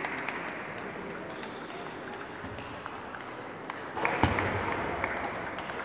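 Table tennis balls clicking irregularly off paddles and tables, over the steady hum of a large sports hall. A louder rush of sound comes in about four seconds in.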